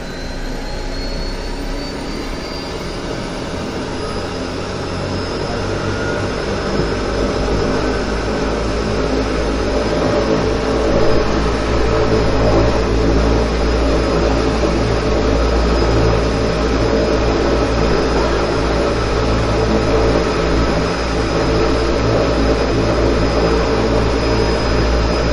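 Pratt & Whitney PT6A turboprop engine of a DHC-6 Twin Otter floatplane starting up, heard from inside the cockpit. A high turbine whine rises in pitch over the first few seconds and then holds steady. The low drone of engine and propeller grows louder until about halfway through, then runs steadily.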